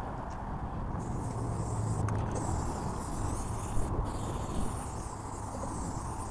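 Aerosol spray-paint can hissing in long sprays, starting about a second in with short breaks twice, over a steady low rumble.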